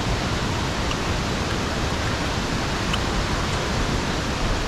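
Steady rush of a stream and waterfall: an even hiss of falling water that does not rise or fall.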